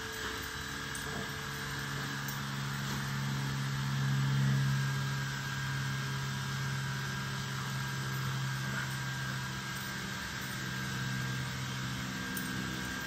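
Steady low mechanical drone of a running motor, swelling slightly about four seconds in.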